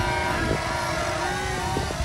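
Small electric motor and propeller of a micro RC foam model plane whining as it flies past overhead, the pitch wavering up and down with throttle and distance. Wind rumbles on the microphone underneath.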